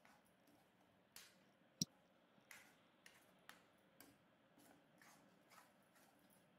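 Faint, irregular clicks and taps of a wooden spoon against a metal kadai as a thick spice paste is stirred, the loudest click a little under two seconds in.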